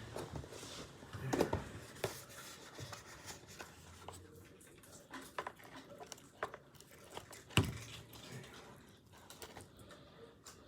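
Takeout food packaging and utensils being handled: scattered rustles, scrapes and light clicks, with a sharp knock about seven and a half seconds in.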